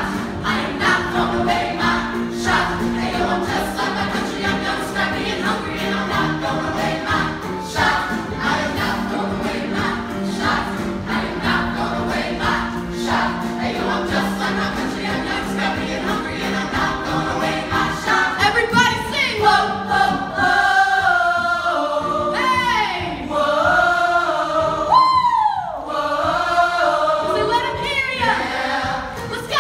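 An ensemble cast singing a show tune together in chorus, live on stage. The first part is held chords; after about 18 seconds the voices move into sweeping, sliding lines.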